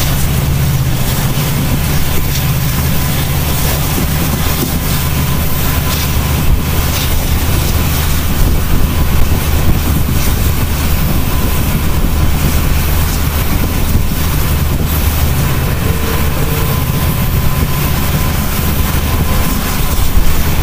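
Steady running noise of an LHB passenger coach at speed: a constant low rumble from the wheels and track under a loud, even rushing hiss, with a few faint ticks.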